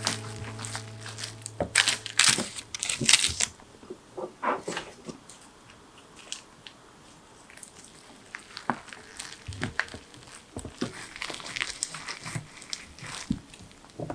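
Dried seaweed sheet crinkling and a bamboo rolling mat rustling as a gimbap roll is rolled and pressed by hand. The sharpest crackles come in a cluster a couple of seconds in, then lighter scattered rustles.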